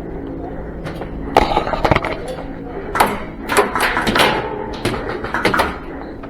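Airsoft guns firing: an irregular run of sharp cracks and clacks starting about a second and a half in, over a steady background hum.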